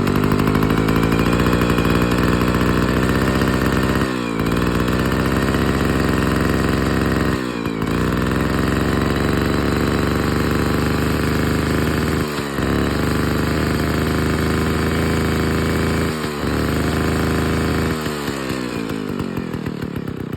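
Vintage McCulloch 549 two-stroke chainsaw running at high speed, stumbling briefly four times and recovering each time. Near the end the revs fall away toward idle. The owner says the carburettor needs cleaning.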